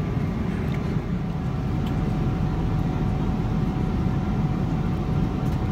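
Steady low rumble from inside a moving vehicle, with a faint steady whine above it.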